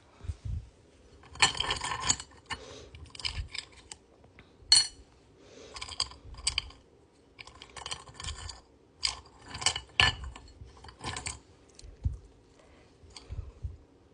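Small quartz crystals clinking and clattering against one another and a hard surface as they are handled and set down, in irregular clusters of clicks.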